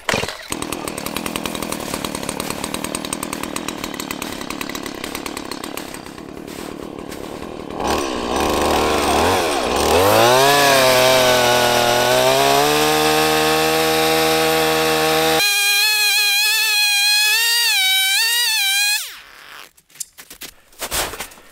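Two-stroke Stihl chainsaw running, first at a steady lower speed, then revved up and cutting into a log, its pitch dipping and climbing and then wavering under load. It shuts off near the end.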